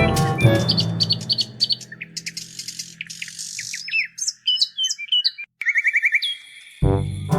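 Birds chirping: many short high calls sweeping up and down, with a quick trill about six seconds in. Music fades out over the first two seconds and starts again near the end.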